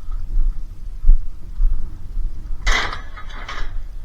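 Uneven low buffeting rumble on the microphone, with a single click about a second in and a short burst of rustling or clattering noise near the end.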